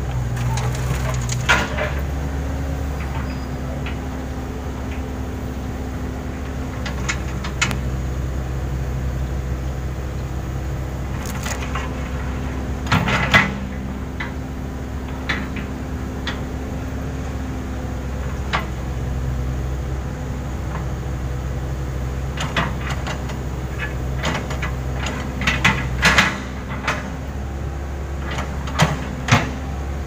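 Backhoe loader's diesel engine running steadily, its pitch shifting slightly with the hydraulic load as the backhoe digs and dumps soil. Several sharp knocks and clatters of the bucket and falling earth and stones, the loudest about halfway through and near the end.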